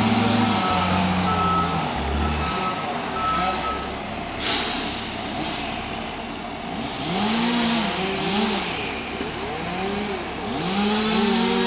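A truck's reversing beeps repeat steadily over its running engine for the first few seconds, then a short burst of hiss like an air brake releasing comes about four seconds in. From about seven seconds an engine revs up and down in a series of short blips.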